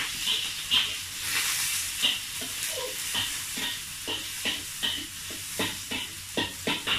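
Ginger, garlic and onion sizzling in hot oil in a wok, with a metal spatula stirring them and scraping and clicking against the pan in quick, irregular strokes.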